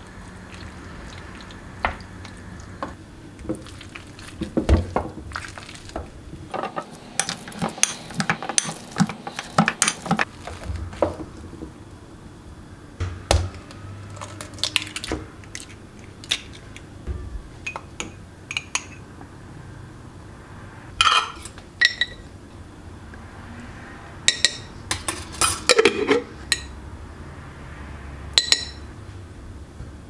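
Kitchen utensils knocking and clinking against cookware, a pot and a glass mixing bowl: scattered knocks, a busy run of them about a quarter of the way in, and several ringing clinks in the second half.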